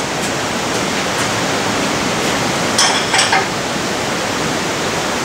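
Steady rushing background noise, with two brief clicks about three seconds in.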